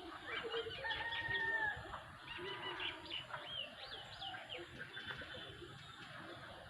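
Birds chirping: a longer held call about a second in, then a run of quick chirps that sweep up and down in pitch, fading out toward the end.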